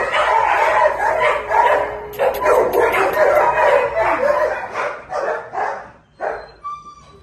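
Dogs barking and yipping in shelter kennels, several calls overlapping densely at first, then thinning to a few separate barks over the last two seconds.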